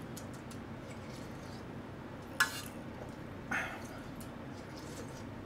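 Ramen being eaten from a metal pot: soft eating sounds and light clinks of utensils on the pot, with two short, louder slurps about two and a half and three and a half seconds in.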